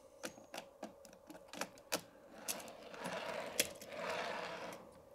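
Small model railway wagons being handled and set on the track: a quick series of light clicks and taps, then two stretches of rubbing, one in the middle and one near the end.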